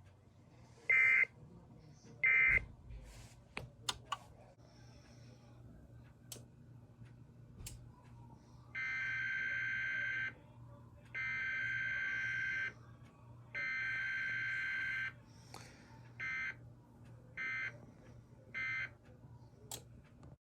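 Emergency Alert System SAME data bursts, the warbling two-tone digital code: two short bursts in the first few seconds, then from about nine seconds in three longer header bursts about a second apart, followed by three short end-of-message bursts. A few faint clicks and a low steady hum lie between them.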